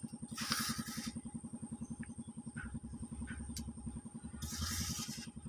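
An engine running steadily with an even, rapid pulse of about a dozen beats a second. Two short bursts of hiss come about half a second in and again near the end.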